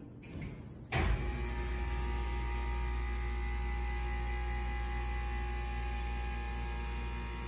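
Thyssenkrupp Impulse hydraulic elevator's pump motor starting with a sudden jolt about a second in, then running steadily with a low rumble and a steady whine as the car travels up.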